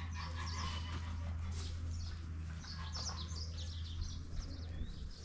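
Small birds chirping busily, many short quick high calls overlapping, over a steady low hum.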